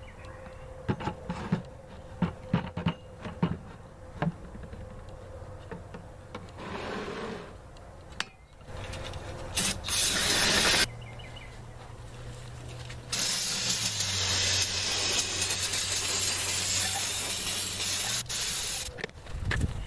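Aerosol brake cleaner spraying onto a Honda F22B1 cylinder head in a plastic bucket: a short hiss, then a loud burst, then a long steady spray in the second half. In the first few seconds there is a quick run of sharp knocks and clatter.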